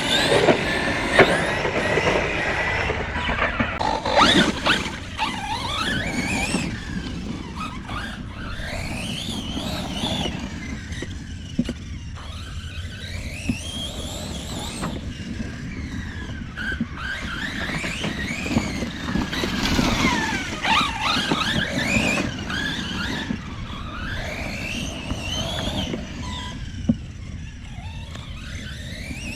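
Brushless electric motor of a 1/8-scale Redcat Kaiju EXT RC truck whining, its pitch rising and falling again and again with the throttle, over the rumble of the Arrma Copperhead 2 tyres on the ground, with a few sharp knocks.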